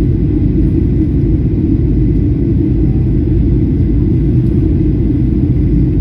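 Airliner noise during the landing flight: a steady low rumble of engines and airflow that does not change.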